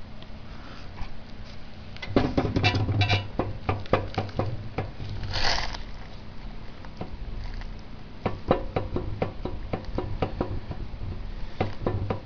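Irregular light clicks and knocks of metal and handling as the steel crankshaft end of a seized Tecumseh tiller engine is worked by hand to check for play in its bearing, with a short rustle about five and a half seconds in.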